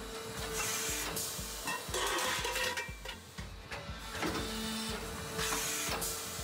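Hydraulic press forming a non-stick pot from a metal disc in one stroke: the ram lowers, presses and lifts. The machine runs with a steady tone and short bursts of hiss, in a cycle that repeats about every four and a half seconds.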